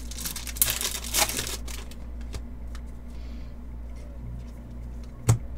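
Trading cards being handled: a rustle of cards sliding against each other with small flicks for the first second and a half, then a few light clicks, and one sharper tap near the end. A steady low hum sits underneath.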